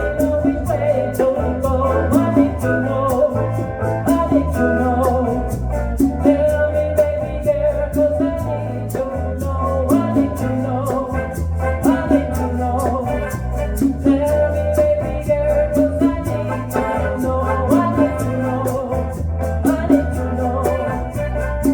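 A small Latin band playing a song: a sung lead over conga and bongo, guitar, keyboard and bass, with the hand drums keeping an even, steady beat.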